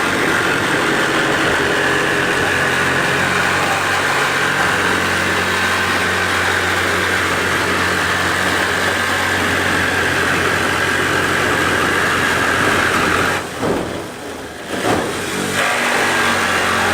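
A motor running steadily with a constant hum, dropping away briefly about thirteen seconds in before picking up again.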